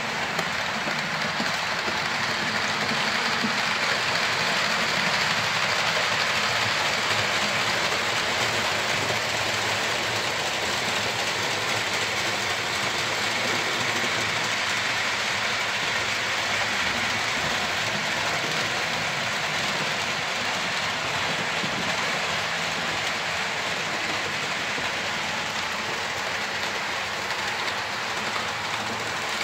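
Several H0-scale model trains running on the layout's track: a steady rolling and whirring of small wheels on rails and their motors, a little louder a few seconds in.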